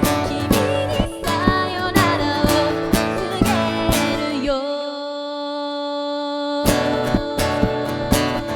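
Rock song played live with guitar, drums and bass, with a gliding melody line over it. About halfway through, the band drops out to a single held note, then comes back in full about two seconds later.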